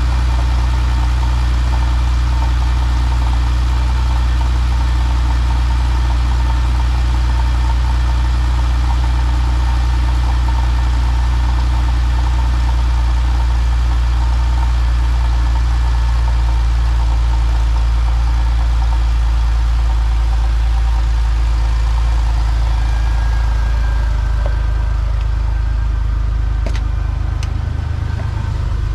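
Porsche 911 (993)'s air-cooled 3.6-litre flat-six idling steadily after a cold start.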